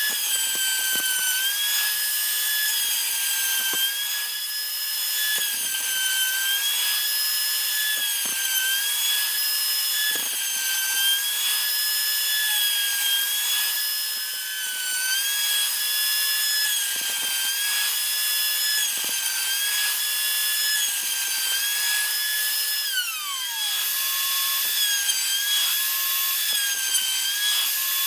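Electric trim router running at high speed and cutting wood, a steady high-pitched whine that sags slightly in pitch each time the bit bites and picks back up. Near the end the pitch slides sharply down, then the router returns to full speed.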